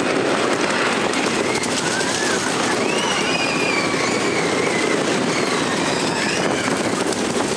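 Roller coaster train rattling and rumbling along a wooden track at speed, with a few short, high, wavering squeals over it, around the middle and again near the end.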